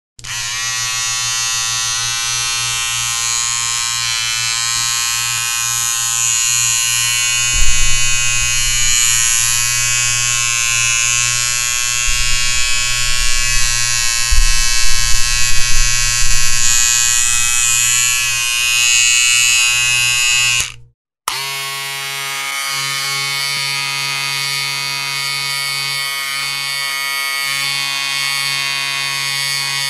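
Electric hair clipper running with a steady buzz, louder and uneven from about 8 to 17 seconds as it cuts through hair. It switches off just before 21 seconds and starts again about half a second later, with a slightly different tone.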